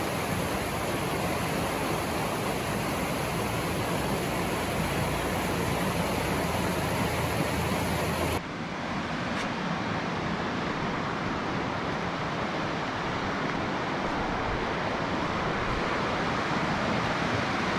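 Creek water rushing over rocks and small rapids in a steady wash. About eight seconds in the sound cuts suddenly to a slightly quieter, duller rush from another spot on the creek.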